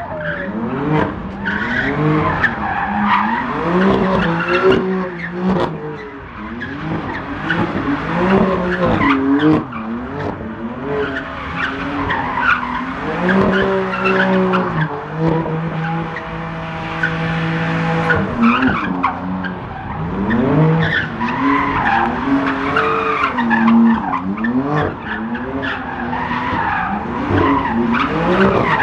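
A car drifting, its tyres squealing while the engine revs rise and fall over and over, held steady for a few seconds about halfway through.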